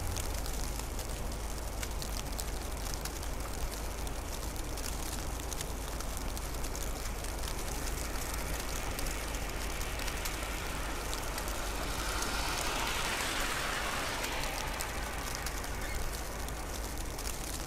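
Steady snowfall ambience: a constant hiss with fine scattered ticks and a low rumble underneath. A broad swell of noise rises about ten seconds in and fades by about sixteen seconds.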